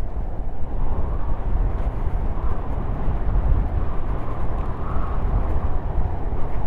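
Steady, deep rushing of wind over the microphone, with tyres rolling on asphalt, as a Trottibike scooter coasts downhill.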